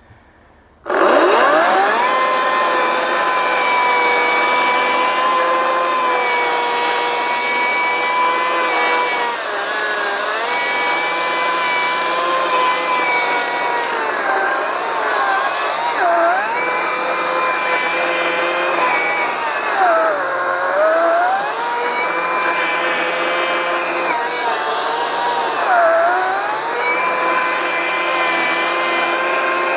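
Ryobi 40V brushless battery chainsaw starting about a second in and running as a loud, steady whine while cutting into a wooden stump, its pitch sagging several times as the chain bogs down in the wood. The chain is probably dull.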